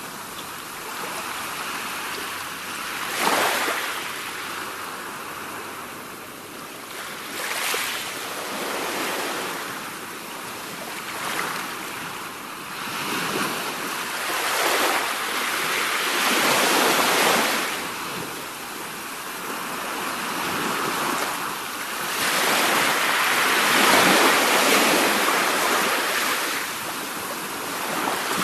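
Sea waves washing in one after another, each swelling and falling away every few seconds, with the biggest, longest surge about three-quarters of the way through.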